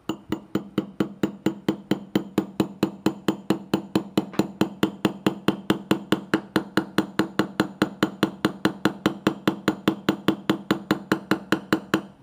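Brass hammer tapping a roll pin into a steel Sig M11A1 (P228) pistol slide in a steady run of light taps, about four to five a second, each with a short ring from the slide. This is the longer roll pin being driven home, which also retains the firing pin.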